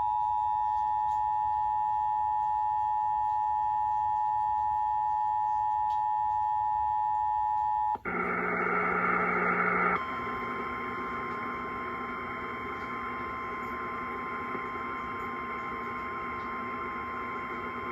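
Emergency Alert System two-tone attention signal, two steady tones sounding together for about eight seconds. It cuts off suddenly into about two seconds of loud radio hiss, followed by the NOAA Weather Radio single-tone warning alarm, one steady tone over hiss that stops just before the spoken warning begins.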